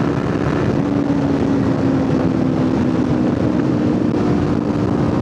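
Kawasaki Ninja 500's parallel-twin engine running at a steady cruise, its pitch drifting slightly, under a thick rush of wind noise on the helmet microphone.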